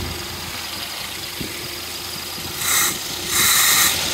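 1930 Ford Model A four-cylinder flathead engine idling warm on a Weber two-barrel downdraft carburettor, then running louder in two surges near the end as the throttle is worked by hand.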